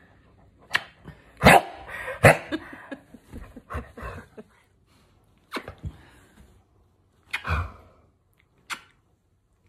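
A 17-year-old dog giving a string of short, sharp barks spaced a second or so apart, the loudest two coming about one and a half and two and a half seconds in: his protest at being kissed.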